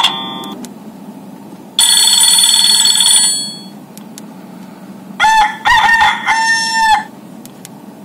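A Nokia 1110's speaker plays ringtone previews as the ringing-tone list is scrolled. First comes a steady, buzzy electronic tone for about a second and a half. Then, a few seconds later, the phone's rooster tone plays: an electronic imitation of a cock crowing, in three pulses with rising and falling pitch.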